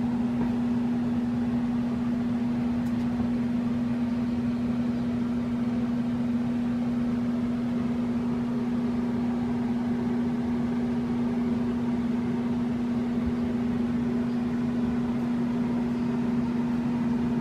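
Steady machine hum with one strong low tone and fainter overtones, unchanging in pitch and level.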